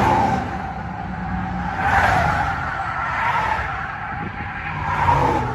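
Road vehicle noise, a rushing sound with tyre noise that swells three times: at the start, about two seconds in and near the end.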